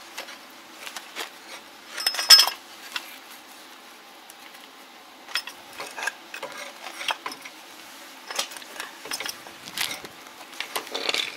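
Scattered metallic clinks and clatter as a caster wheel's metal mounting plate is handled and held up against the underside of a tracked machine's steel frame, loudest in a cluster about two seconds in.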